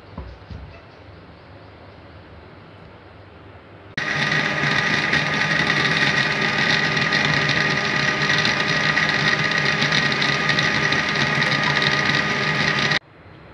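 Electric blender motor running at a steady speed, blending falsa berries with ice and water into juice. It starts suddenly about four seconds in and cuts off suddenly near the end, after a few seconds of quiet.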